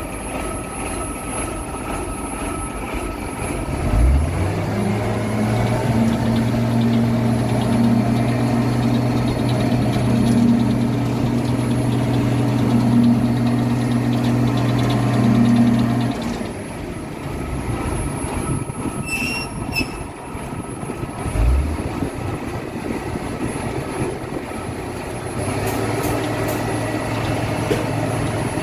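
Heavy diesel engine of concrete-pouring equipment (concrete pump or truck mixer) running over steady site noise. About four seconds in it revs up and holds a steady higher speed, drops back about sixteen seconds in, and picks up again near the end.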